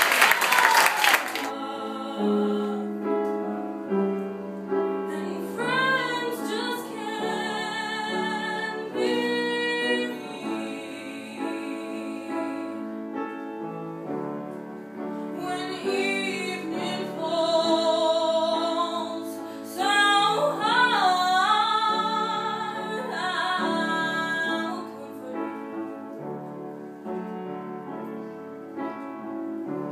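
Applause dies away in the first second or two. Then a woman sings live with a wide vibrato, accompanied by acoustic guitar.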